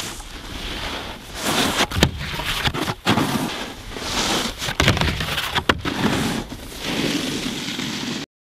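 Snowboard sliding and scraping over snow, with wind rushing on the microphone and a handful of sharp knocks.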